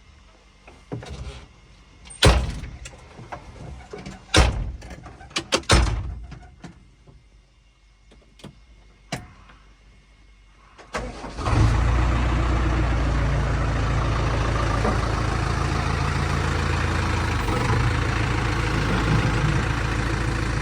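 Several separate knocks and clunks, then about eleven seconds in a diesel engine starts and settles into a steady idle.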